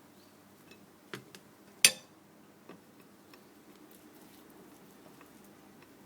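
A few light clicks and knocks of kitchenware being handled, with one sharp clack just under two seconds in.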